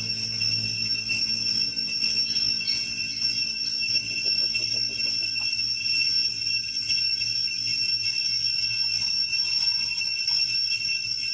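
Steady, continuous high-pitched insect buzzing, a cicada chorus in the forest canopy.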